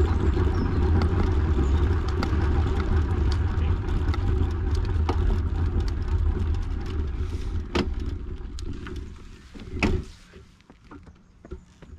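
Steady low rumble of a moving vehicle. It fades away and stops about ten seconds in, ending with a single thump, and a few light clicks follow.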